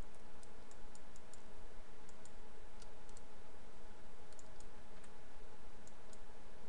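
Scattered, irregular light clicks of a computer mouse over a steady background hiss with a faint hum.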